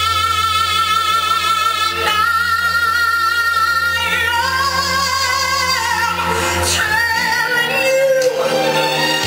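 A song with a woman singing long held notes with vibrato over instrumental backing.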